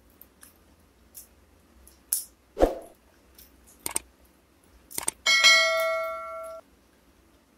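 A few sharp clicks and a loud thump, then a bell-like ding with several ringing tones that fades for just over a second and cuts off suddenly: the click-and-bell sound effect of an animated subscribe button.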